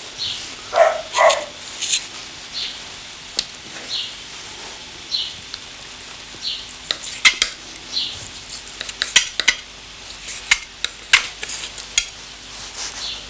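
Small kitchen knife slicing a veal kidney into thin escalopes on a wooden board: short wet cutting strokes every second or so, with sharp clicks of the blade against the board, over a steady background hiss.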